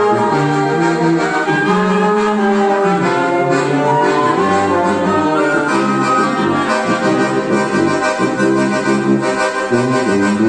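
Small church wind band of sousaphone, trombones, saxophone and clarinet with accordion, playing a hymn in a minor key: slow, sustained chords that change about every second.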